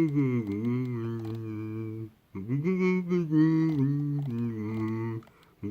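A voice humming long held notes in phrases of about two and a half seconds. One phrase ends about two seconds in, a new one starts just after, and it stops again near the end.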